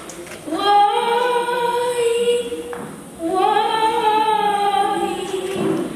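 A young girl singing a Swahili prayer song unaccompanied into a microphone: two long held notes, the first ending about three seconds in and the second running almost to the end.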